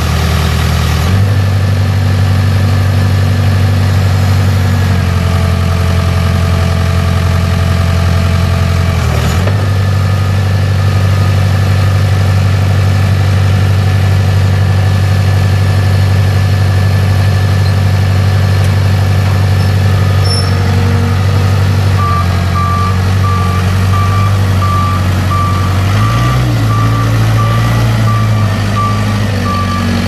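Case 580K backhoe's four-cylinder turbo diesel engine running, its pitch shifting a few times. From about two-thirds of the way through, a reversing alarm beeps steadily, the sign that the machine is in reverse.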